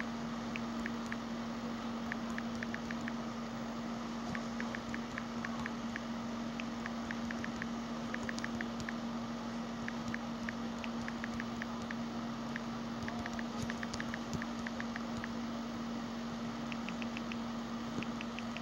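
Typing on a phone's touchscreen keyboard: quick, light ticks in irregular runs, one per key press, over a steady low hum.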